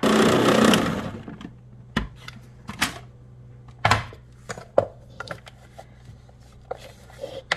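Plastic food-processor bowl being handled and ground nut paste scraped down with a wooden spatula: a loud, noisy burst in the first second that fades out, then scattered knocks and clicks.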